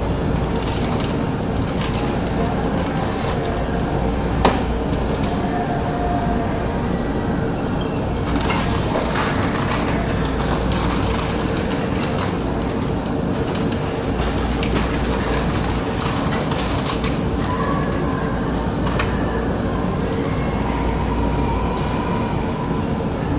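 Steady hum of a large store's ventilation and background noise, with a single sharp knock about four and a half seconds in and faint clicks of items being handled on the shelves.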